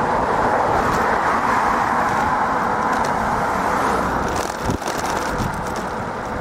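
Road traffic passing close by: car tyre and engine noise that swells and stays strong for about four seconds, then fades.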